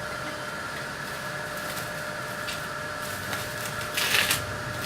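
Packaging handled during an unboxing: a faint click, then a brief rustle of wrapping about four seconds in, over a steady background hum.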